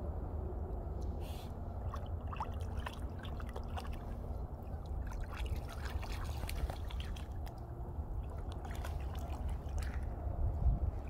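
Cocker spaniel wading in shallow river water: small splashes and trickles as its legs move, mostly in the middle stretch, over a steady low rumble.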